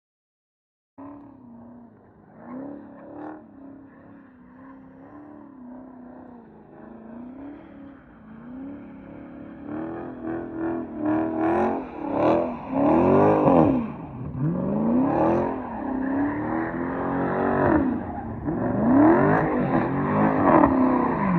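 A car engine revving hard in repeated rising and falling swells as the car does burnouts and donuts, getting louder over the second half.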